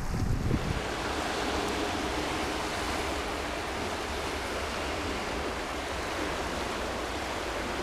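Fast tidal current of the early flood tide rushing along a rocky shore: a steady, even rush of moving water. Wind rumbles on the microphone for the first moment, then stops.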